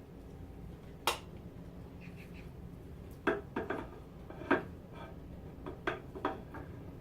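Irregular sharp clicks and knocks of hard parts being handled, about a dozen in all, the loudest about a second in and around the middle.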